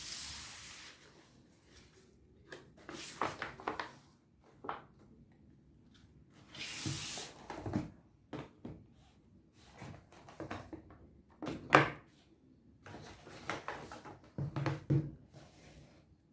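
iPhone 14 Pro box and packaging being handled during unboxing: short bursts of rustling or sliding, with scattered taps and knocks. The sharpest knock comes near twelve seconds in.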